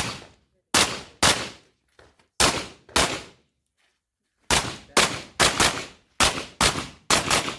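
Pistol shots fired in quick pairs, about a dozen in all, with short pauses between the pairs: double-taps on targets during an action pistol stage.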